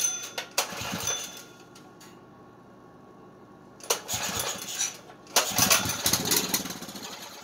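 Small engine being pull-started on starting fluid: about three hard yanks of the recoil starter, each setting the engine firing briefly for a second or so before it dies back down, with a quiet spell between the first and second pulls.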